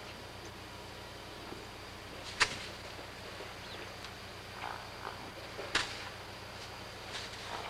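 Horse trotting loose on a dirt paddock, its hoofbeats soft under a steady low hum. Three loud, sharp cracks stand out, about three seconds apart.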